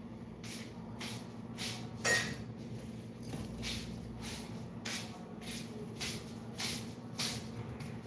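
Caged green parakeet shuffling and scraping on its perch: a string of short scratchy scrapes about every half second, the loudest about two seconds in, over a steady low hum.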